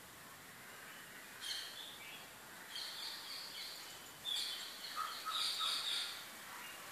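Birds chirping: a few high chirps about a second and a half in, more around three seconds, and a louder run of chirps from about four to six seconds in, over a low steady hiss.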